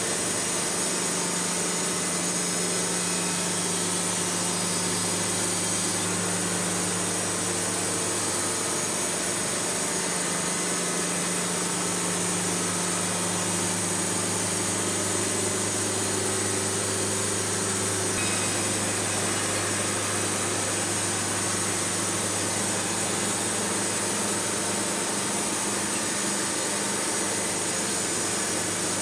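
An engine-driven machine running steadily at an even speed, a constant hum under a wash of noise.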